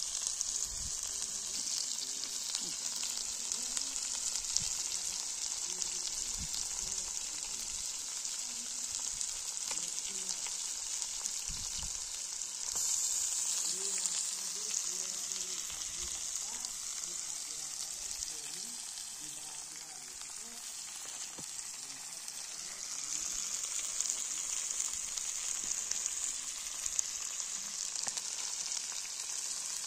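Whole spice-coated fish frying in a wide metal pan, a steady sizzle. The sizzle swells louder about halfway through and again in the last third.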